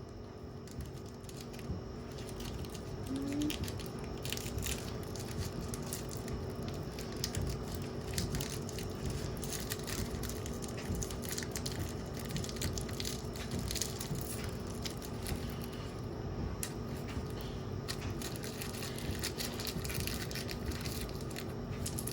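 Washing machine running with stones inside its drum: the stones clatter and knock continuously and irregularly against the drum over a faint steady motor hum.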